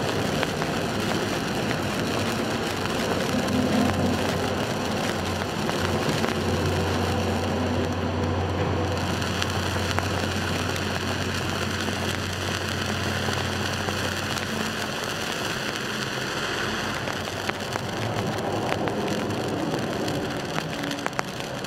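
Inoue Hanabi low-smoke, seven-colour-change handheld fountain firework burning, its jet of sparks giving a steady rushing hiss with small scattered crackles.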